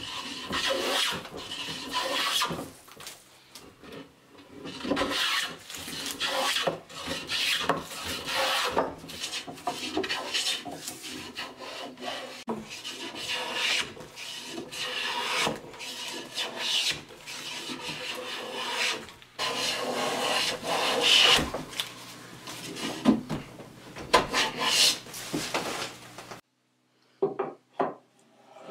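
Wooden hand plane taking repeated strokes along the edge of a board, each pass a rasping shave as the blade lifts a long shaving. The strokes stop near the end, followed by a few faint light knocks.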